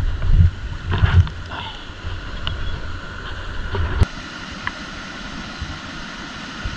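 Stream water running steadily, with wind buffeting the microphone in low rumbling bumps during the first second or so. A single sharp click comes about four seconds in.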